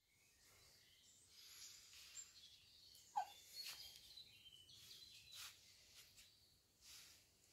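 Near silence: quiet room tone with a few faint high chirps and one brief louder squeak about three seconds in.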